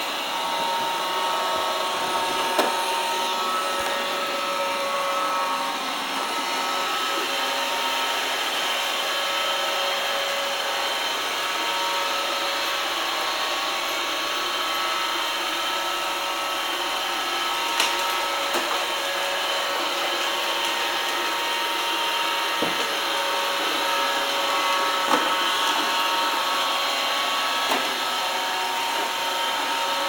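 Roomba robot vacuum running: a steady whir of its motors and brushes with a constant hum in it, broken by a few sharp knocks.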